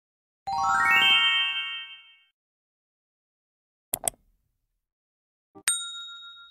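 Sound effects of a subscribe-button animation: a quick rising run of chime notes, then a double mouse click, and near the end a short click followed by a bell ding that rings on and fades.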